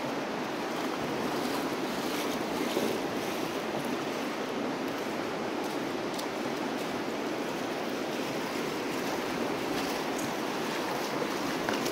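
Steady rushing of the shallow North Fork of the Virgin River flowing over stones.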